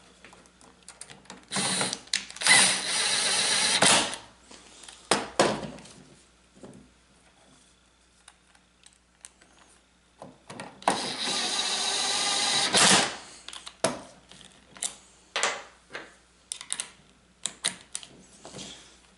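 Cordless power driver run twice, each time for about two seconds, driving screws into the steel cover of a metal electrical box. Light clicks and rattles of handling come between the runs.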